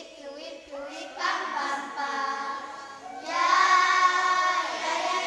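A group of children singing together, getting clearly louder about three seconds in.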